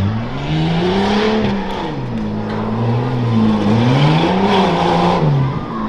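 A rough-truck race vehicle's engine revving hard and easing off under load as it drives over dirt mounds. The pitch climbs for about a second and a half and drops, holds, then climbs and falls again near the end.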